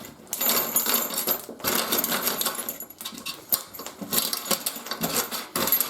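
Loose steel drill bits rattling and clinking against each other and their container, in three stretches of rapid clatter.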